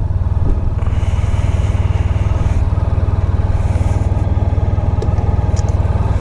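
Motorcycle engine running steadily at low revs, with an even low pulsing close to the microphone.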